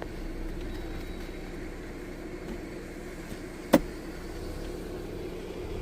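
Jeep Gladiator pickup's engine running steadily as it drives, with a single sharp knock about two-thirds of the way in.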